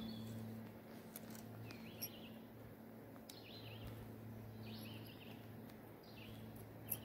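Faint songbird singing: a short chirping phrase repeated about every second and a half, over a low steady hum, with a few small clicks.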